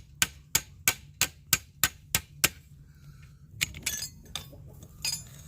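Metal-on-metal tapping on a steel T-post fitting, in quick, even strikes about three a second that stop about two and a half seconds in, followed by a few scattered clinks.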